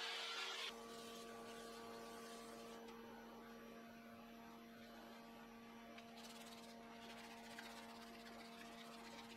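Faint steady electrical hum with several steady tones. A power sanding pad rubbing on the spinning wooden bowl stops abruptly under a second in.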